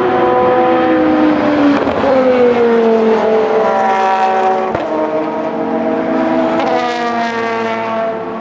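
Several endurance race cars, open prototypes and GT cars, passing one after another with their engines overlapping. The engine pitch falls as cars go by in the first few seconds, breaks sharply around the middle, and climbs again as a car accelerates about two-thirds of the way in.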